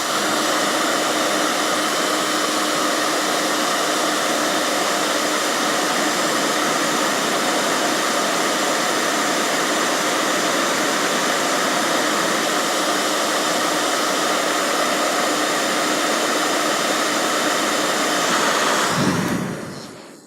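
Hair dryer running on its highest setting, a steady rushing blow of air. It is switched off about nineteen seconds in and dies away.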